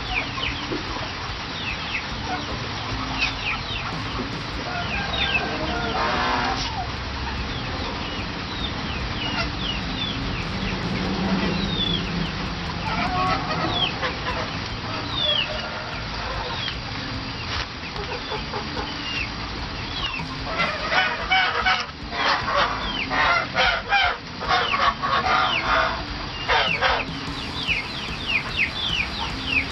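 Backyard ducks and chickens calling: short high falling chirps repeat throughout, and a run of louder, harsh calls comes in the last third.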